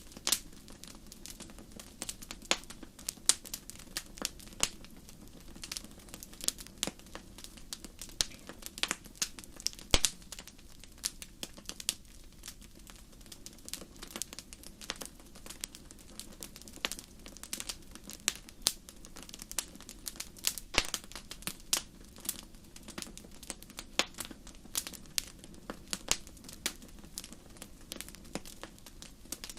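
Wood fire in a fireplace crackling: irregular sharp pops and snaps over a low steady hiss of flame, with one louder pop about ten seconds in.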